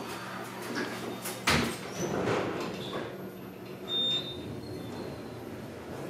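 Hospital lift's sliding steel doors closing, shutting with a loud thump about a second and a half in, then the car running as it starts down. A short high beep sounds about four seconds in.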